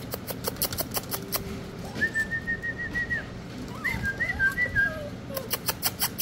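Dachshund puppies whining: a high, slightly wavering whine held for about a second, then several overlapping high whimpers that slide up and down. Quick runs of sharp clicks near the start and near the end.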